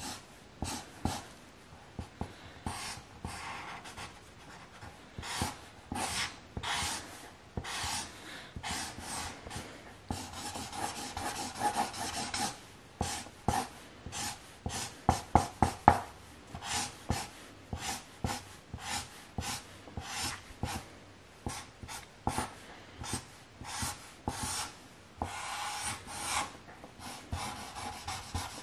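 Grey marker rubbing back and forth on paper in quick shading strokes, some with a slight squeak. The strokes come fastest and loudest around the middle.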